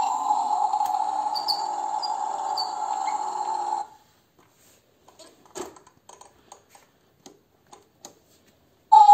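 A battery-powered toy scooter gives out a steady electronic sound that cuts off abruptly about four seconds in. A few faint clicks and taps follow as a hand handles the toy.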